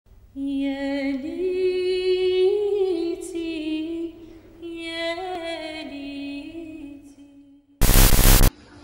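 Wordless singing: a single voice holds long notes that glide slowly up and down, in two phrases. Near the end a short, loud burst of hiss-like noise cuts in.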